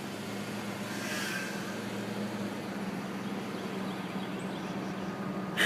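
Steady low mechanical hum over an even hiss of background noise, with a faint wavering tone about a second in.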